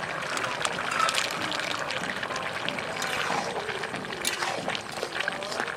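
A pot of mixed-vegetable curry simmering in its broth while a spatula stirs through the vegetables, giving wet sloshing and bubbling with a few sharp clicks of the utensil against the pot.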